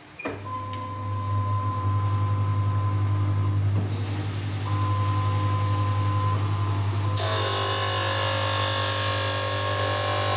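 Supore LE-520 auto lens edger starting up: its motor comes on with a steady low hum and a thin whine that drops out and returns. About seven seconds in a loud hiss with high grinding tones joins, the sound of the lens being edged against the wheel.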